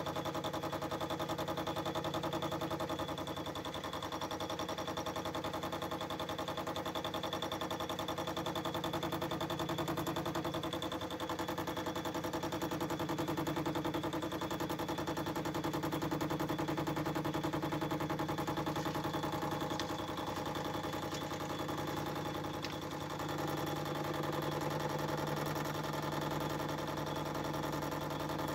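Small metal lathe running steadily while a rear-mounted parting tool cuts off a metal casting held in the chuck.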